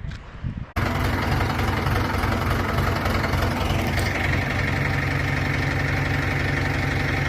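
Heavy industrial machinery running steadily: a loud, rough engine-like drone with a low hum that starts abruptly less than a second in, with a higher steady whine joining about halfway.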